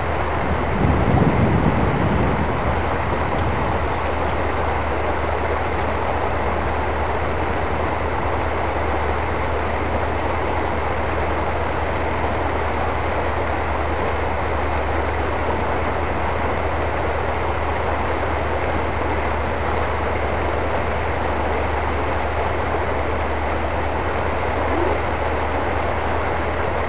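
A 4x4's engine idling steadily, with a brief louder swell about a second in, under an even hiss.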